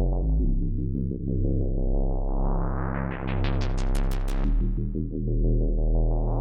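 Arturia Synthx V, a software emulation of the Elka Synthex, playing a sustained chord over a low bass note. Its filter sweeps open, getting brighter and pulsing rapidly at its peak about four seconds in, then closes suddenly back to a darker tone.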